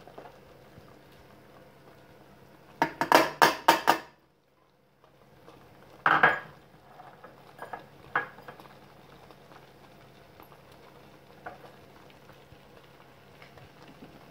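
A spoon knocking against a pan and a bowl while chopped mint is tipped into the pan: a quick run of about six knocks, then a single louder knock a couple of seconds later and a lighter one after that, with a faint steady hum underneath.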